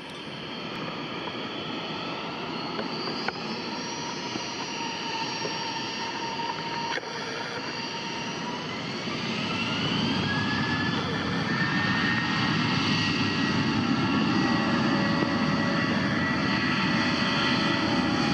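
Boeing 737-800's two CFM56 turbofan engines spooling up to takeoff thrust. The engine whine rises in pitch about eight to ten seconds in, and the jet noise grows louder and then holds steady as the takeoff roll begins.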